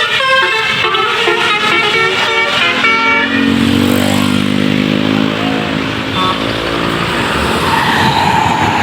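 A Basuri telolet bus horn plays a quick melody of short multi-tone notes for about three seconds. A lower bus engine drone follows, falling slightly in pitch, then road noise.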